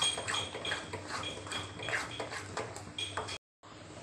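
Wooden spatula scraping and stirring a thick singhara flour, milk and sugar mixture in a metal kadhai, in rhythmic strokes of about two to three a second. The sound cuts off abruptly about three and a half seconds in.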